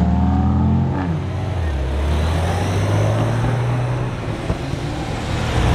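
Sports car engines running as cars pull away down the street. One engine note falls about a second in, then a steady low engine drone carries on.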